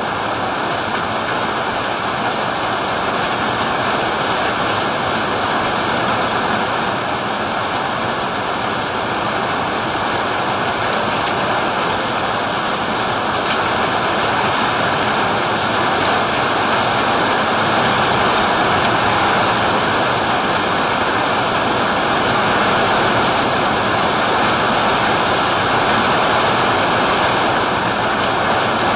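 Heavy rain falling steadily, a dense even hiss that grows a little louder about halfway through.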